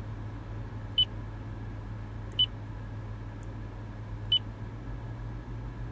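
Three short, high touch-confirmation beeps from the 2016 Toyota Land Cruiser's touchscreen infotainment display as menu items are tapped, one to two seconds apart, over a low steady hum.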